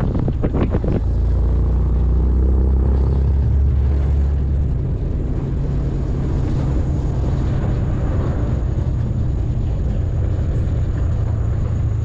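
A vehicle's engine running steadily while driving: a low, even hum, strongest over the first few seconds, with a brief clatter in the first second.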